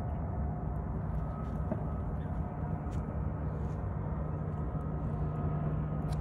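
Steady low rumble of outdoor background noise with a faint steady hum running under it.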